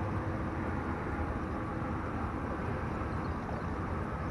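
Steady noise of freeway traffic, with no single event standing out.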